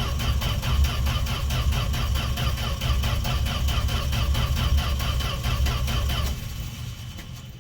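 Starter cranking the cold 1968 Fargo (Dodge) D100 pickup's engine in an even, rapid chug without it firing: cranked with no choke and no pumping of the gas pedal while fuel is still being drawn up to the carburettor. The cranking stops about six seconds in.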